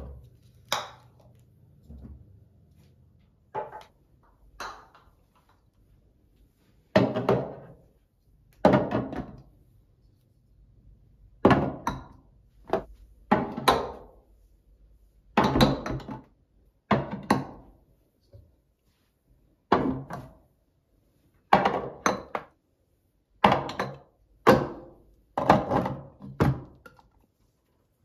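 Glass storage jars with lids being set down and slid into place on a cupboard shelf: a run of about a dozen knocks and clinks, one every second or two.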